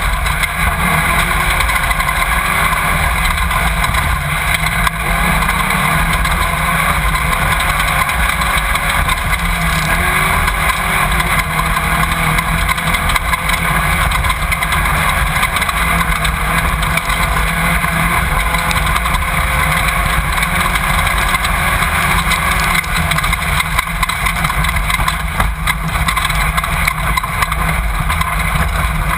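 Off-road race car at speed, heard from its onboard camera: engine running hard under a steady loud wash of wind and rough-terrain noise, its pitch shifting a little as the driver works the throttle.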